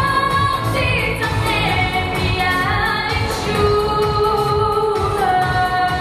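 A woman singing a pop song into a handheld microphone over a backing track, holding long notes that glide from one pitch to the next.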